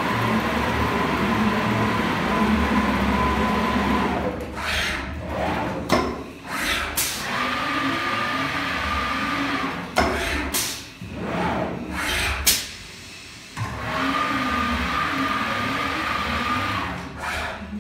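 CNC router with an HSD 9 kW spindle working through an automatic tool-change test with its pop-up 16-tool magazine: steady running with a thin whine, while the servo-driven axes move with rising and falling whirs. Several sharp air blasts and clicks come in the middle, typical of the pneumatic tool release and magazine cylinders.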